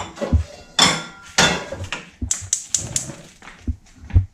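Gas stove burner igniter clicking rapidly, about five clicks a second, as the burner is lit under a wok. Before it come a few knocks and two louder noisy bursts from the cookware being handled.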